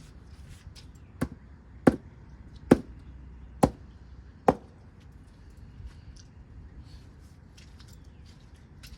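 Five sharp blows struck on the wooden window header, a little under a second apart.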